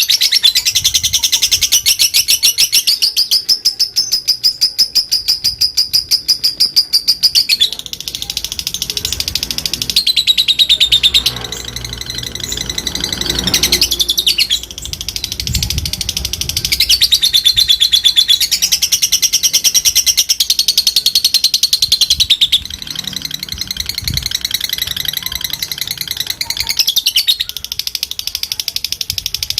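Fighter lovebird's long ngekek: a fast, unbroken chattering trill of high, sharp chirps in stretches several seconds long, with short breaks between them.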